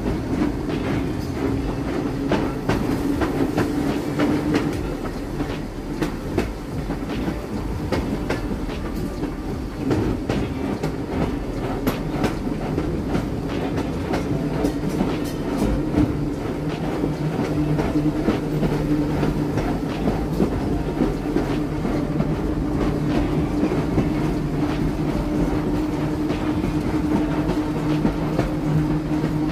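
1896 Brownell streetcar rolling along its track: a steady hum with a constant tone underneath, and frequent irregular clicks and clacks of the wheels over the rails.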